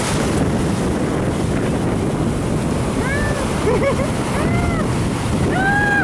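Ocean surf breaking, with wind rushing on the microphone. Several short high calls that rise and fall in pitch come in the second half.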